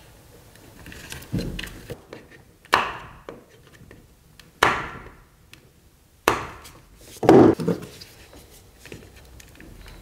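Plastic cable gripper of a Wagobox 221 junction box being worked and pushed into place with pliers: about half a dozen separate sharp plastic clicks and knocks, a second or two apart.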